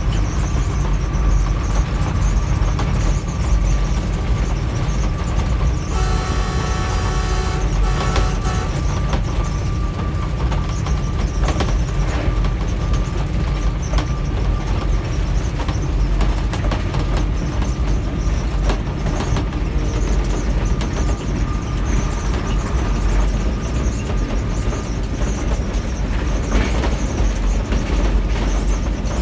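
Diesel-electric locomotive running at speed, heard from inside the cab as a steady heavy rumble of engine and wheels on the track. About six seconds in, the locomotive's horn sounds one blast of under two seconds.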